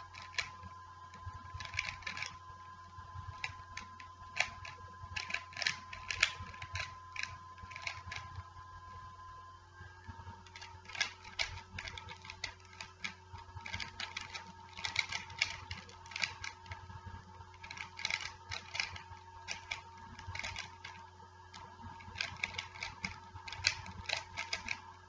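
3x3 Rubik's Cube being speed-solved: its plastic layers turned in rapid runs of sharp clicks and clacks, with brief irregular pauses between bursts of turns.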